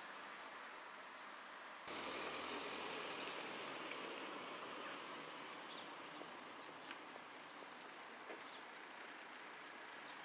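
Steady outdoor background noise, stepping up in level about two seconds in, with a small bird's short, high, downward-sweeping chirps repeating many times over it.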